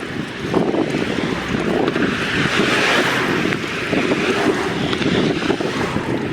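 Wind buffeting the microphone, a rough, steady rushing noise.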